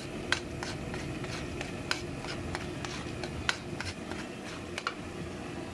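A ladle scraping and knocking against a wok, with irregular sharp clicks a few times a second, as latik (coconut-milk curds) is stirred while it fries in its own oil. A steady sizzle runs underneath.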